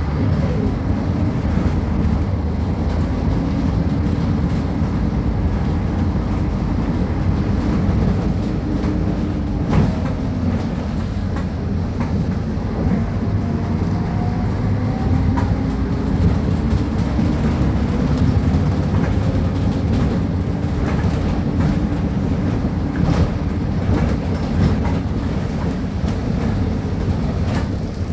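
Diesel engine of a Mercedes-Benz O500UA articulated bus with a ZF Ecomat automatic gearbox, running steadily and low-pitched as the bus drives. Its pitch drifts up and down a little, with sharp knocks and rattles now and then.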